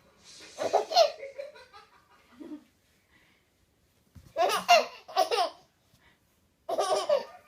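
A baby laughing in three bouts, with short quiet pauses between them.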